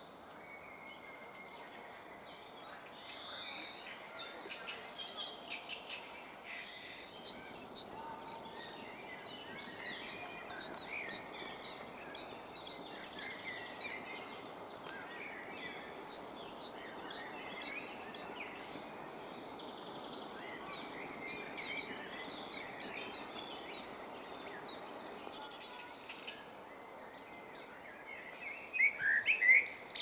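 Great tit singing in four phrases of quick, evenly repeated high notes, about three a second, each phrase lasting a few seconds, over a steady background hum with faint calls of other birds. Near the end a common blackbird starts a lower warbling song phrase.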